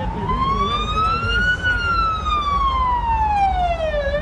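Police car siren wailing in a slow rise and fall: it climbs for about a second and a half, falls for about two and a half seconds, then starts climbing again near the end, signalling a car to pull over. A low rumble of engine and road noise runs underneath.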